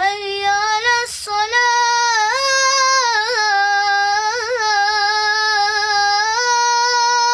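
A boy's solo voice chanting Islamic prayer words unaccompanied, in long held notes with ornamented wavers, in the melismatic style of the call to prayer. There is a short break about a second in, and the pitch steps up about six seconds in.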